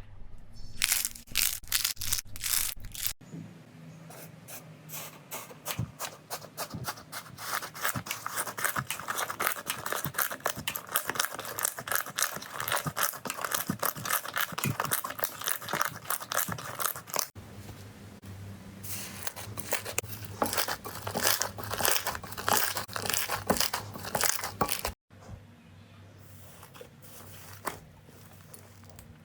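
Slime being squeezed and pressed by hand, making runs of small crackling pops and clicks. It comes as several separate clips that cut abruptly from one to the next, and the last one is quieter.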